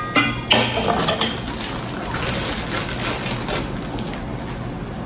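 A utensil clinks against a bowl, then scrapes and stirs around it in a steady, scratchy run, mixing flour into bolinho de chuva batter.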